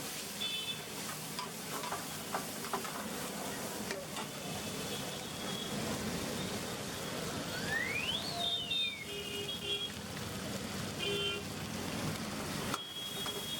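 Food sizzling and frying in a hot pan, with sharp clicks of utensils against the metal every so often. A few short high chirps and one whistle that rises then falls, about eight seconds in, sound over it.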